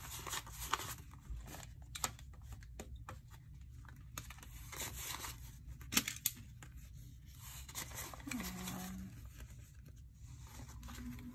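Paper banknotes rustling and snapping as a stack of bills is sorted by hand and laid down in piles, with scattered crisp clicks, the sharpest about a second in and about six seconds in.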